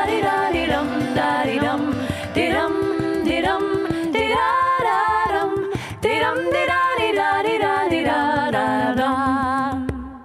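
Unaccompanied voices singing together in close harmony, the lines gliding between notes; the song ends on a held chord that fades out near the end.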